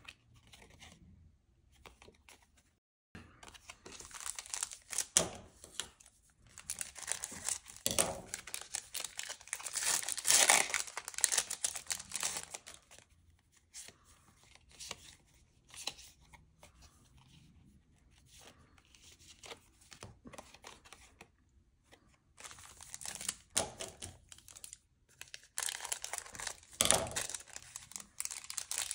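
Foil Pokémon trading-card booster pack being crinkled and torn open in irregular bursts of rustling, loudest about ten seconds in and again near the end.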